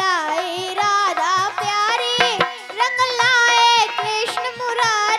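A young girl singing a devotional Holi song with a wavering, ornamented melody, accompanied by a hand drum keeping a steady beat.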